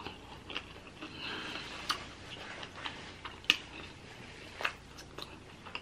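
Close-miked chewing of seafood boil with the mouth closed: soft wet mouth sounds and scattered sharp mouth clicks at irregular intervals.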